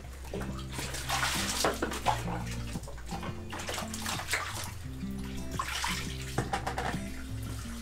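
Water sloshing and splashing in a basin as something is washed by hand, coming in uneven bursts, loudest about a second in and again around six seconds in.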